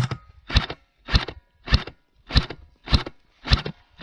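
Footsteps crunching on a forest floor, about one step every 0.6 seconds at a steady quick pace, as a player moves up to a tree.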